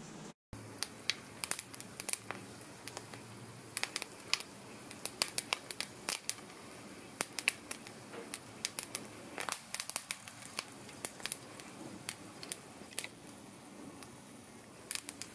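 Mustard, fenugreek and fennel seeds and curry leaves crackling in a little hot oil in a frying pan as the oil heats up. Scattered, irregular pops over a faint hiss.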